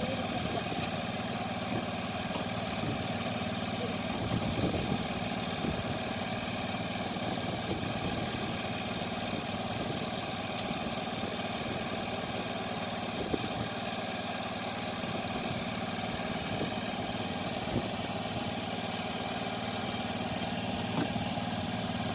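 Fishing boat's engine running steadily, an even hum with a few faint clicks.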